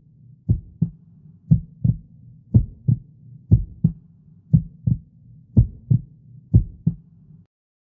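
Heartbeat sound effect: low paired lub-dub thumps about once a second, over a faint low hum. It cuts off suddenly shortly before the end.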